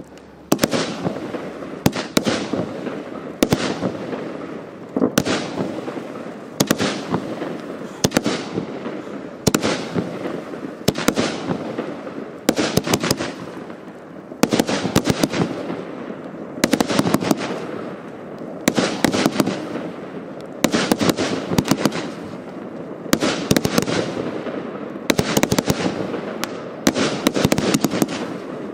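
Hallmark Fireworks 'Game On' firework firing shot after shot. Each shot is a cluster of sharp cracks and bangs, with a fizzing hiss between shots, and a new shot comes about every one and a half to two seconds.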